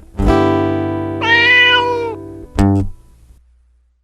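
Acoustic guitar chord ringing out, with a single cat meow over it about a second in. Near the end a short final chord is struck and then fades away, closing the song.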